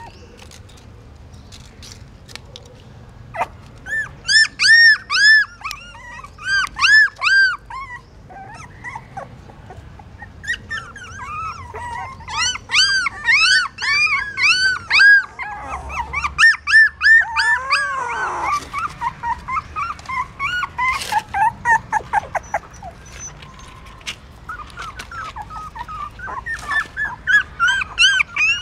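Young puppies whining and crying, a run of short, high, arched squeals that come in bouts with pauses between them: a first bout a few seconds in, a long one through the middle and another near the end.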